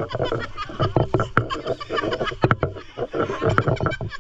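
People laughing and chattering, with a few sharp clicks mixed in.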